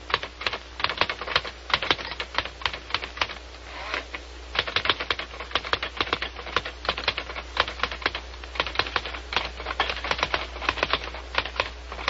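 Typewriter being typed on: quick, uneven runs of key strikes, with a short pause about four seconds in.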